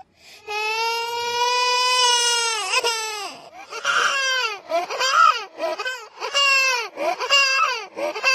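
Small child crying: after a short catch of breath, one long wail of about two and a half seconds, then a run of shorter, broken sobs that rise and fall in pitch.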